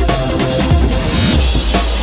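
Electronic dance music with heavy bass and a fast drum beat, in the style of drum and bass.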